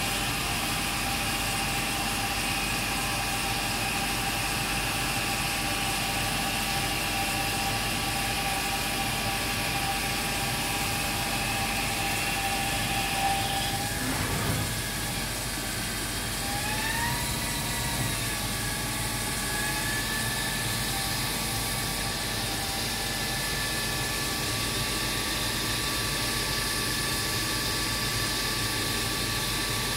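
Machine-shop machinery running steadily, a hiss with several high whining tones. Just under halfway through there is a brief knock and the whine drops out; a few seconds later a new whine rises in pitch and settles at a steady note.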